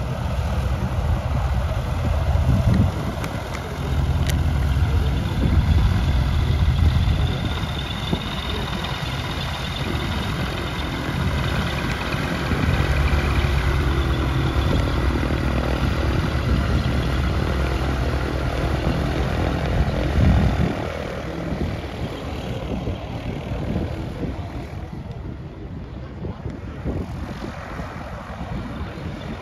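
SeaRey LSX amphibious aircraft's pusher engine and propeller running at taxi power as it taxis past. The engine sound swells and eases a few times, then falls off about twenty seconds in as the plane moves away.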